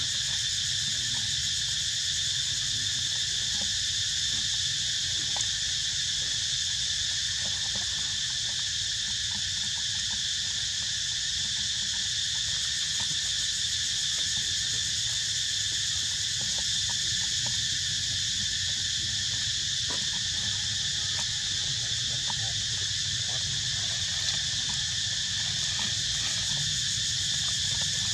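Steady, unbroken high-pitched chorus of insects, in several even layers of pitch, over a low rumble, with a few faint clicks.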